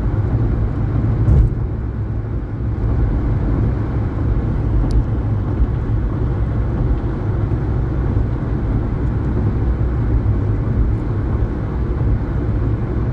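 Steady low rumble of road and engine noise inside a moving car's cabin, with a brief knock about a second in.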